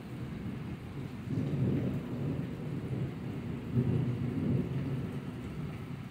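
Rolling thunder rumbling low, swelling about a second in, peaking again near four seconds and then fading, with steady rain falling under it.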